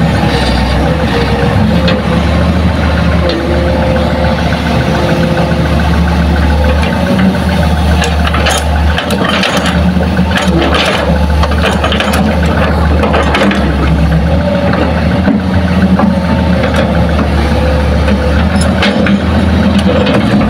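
Hitachi hydraulic excavator's diesel engine running steadily as it works, with a clatter of soil and rocks falling into the dump truck's steel bed about eight to eleven seconds in, and again near the end.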